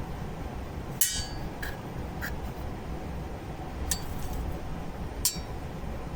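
Five sharp metallic clinks and taps, as of a tool striking metal, spaced irregularly; the first, about a second in, is the loudest and rings briefly. A steady low hum lies under them.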